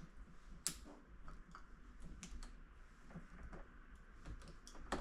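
Scattered light clicks and taps of doorknob hardware being worked into the door's latch, with a sharper click just under a second in and another near the end.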